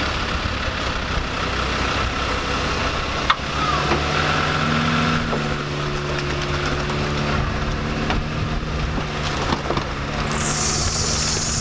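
Vehicle engine running steadily during a tow-rope recovery from deep mud, with a single sharp knock about three seconds in and a brief hiss near the end.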